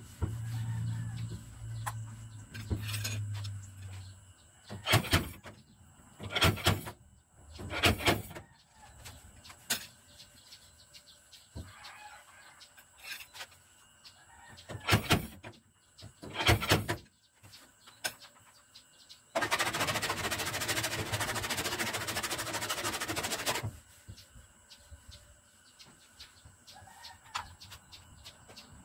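Stud-welder dent puller firing short weld pulses onto a steel body panel: five sharp crackling zaps, in two groups, of about half a second each. Near the middle a steady noise runs for about four seconds.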